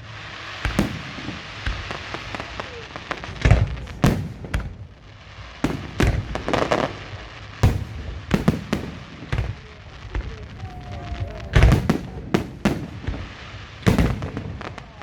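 Fireworks display: a dozen or so loud bangs of bursting shells at irregular intervals, with a stretch of crackling about halfway through.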